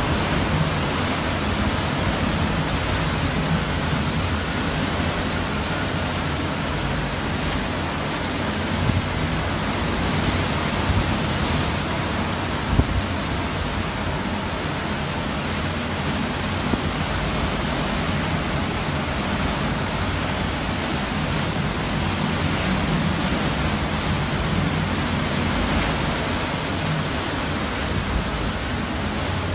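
Hurricane-force wind and driving rain: a loud, steady rush of noise that swells and eases with the gusts, with a brief thump about thirteen seconds in.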